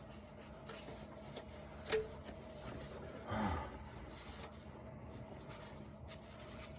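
Quiet hand-tool work on a transmission servo snap ring: a faint steady hum, one sharp metallic click about two seconds in, and a brief scrape about a second and a half later.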